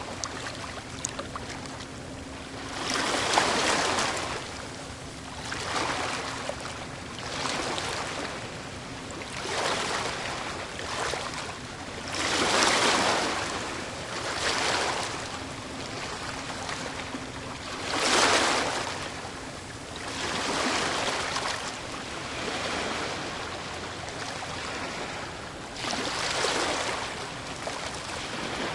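Small ocean waves washing onto a beach in repeated rushing surges, one every two to three seconds, with a few louder breakers among them.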